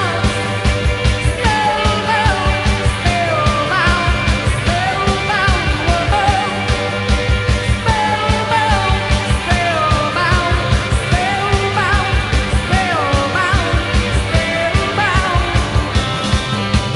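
Live post-punk rock band playing: a woman sings a wavering, sliding melody over a steady, driving drumbeat, bass and guitar.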